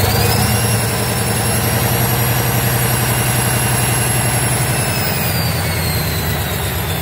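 Turbocharged Gardner 8L3B straight-eight diesel running steadily. A high turbocharger whine climbs over the first half second, holds, then falls away from about five seconds in.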